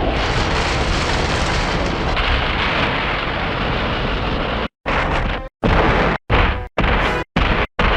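Kaiju-film battle sound effects: a dense, rumbling wash of explosions for about four and a half seconds. This is followed by a string of short, loud bursts, each cut off abruptly by dead silence.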